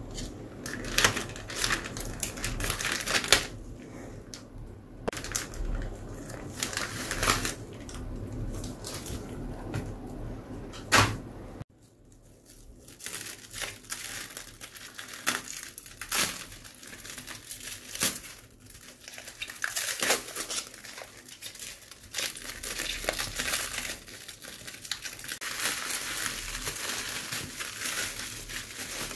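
Plastic courier mailer and bubble-wrap packaging crinkling, crumpling and tearing as a parcel is opened by hand, with scissors cutting the plastic at the start. Irregular sharp crackles; the sound breaks off abruptly near the middle and resumes.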